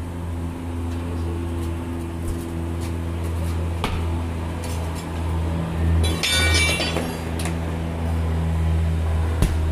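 Steel tire irons clinking and scraping against the steel rim of a tractor wheel as the tyre bead is levered over it, with a burst of metallic ringing about six seconds in. A steady low hum runs underneath.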